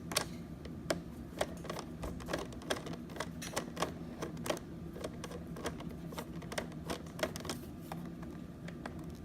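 A screw being backed out of a Roomba's plastic underside with a screwdriver: a run of small, irregular clicks and ticks, several a second.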